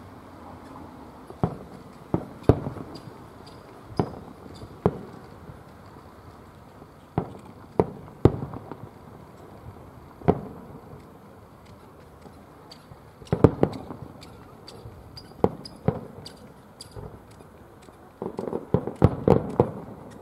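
Aerial fireworks shells bursting: separate sharp bangs every second or two, a quick double about two-thirds of the way through, and a rapid string of bangs near the end.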